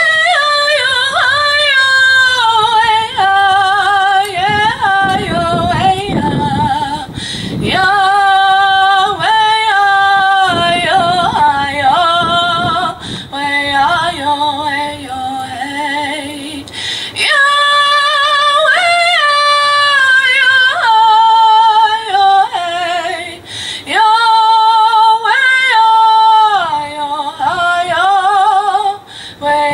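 A woman singing solo and unaccompanied into a microphone, amplified through a PA speaker, in phrases of long held notes with a wavering vibrato and short breaks for breath between them.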